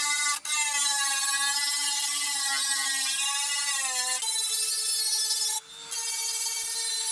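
Electric power tool motor running with a steady whine, its pitch sagging as if under load a little before the middle, then settling at a new steady pitch; the sound cuts out briefly twice.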